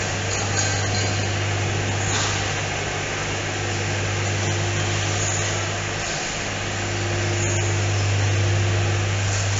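Steady low machinery hum on a factory floor, with a fainter steady tone above it and a few faint clicks.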